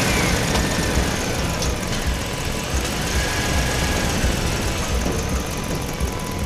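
Steady low engine rumble, with a faint high tone held through the second half.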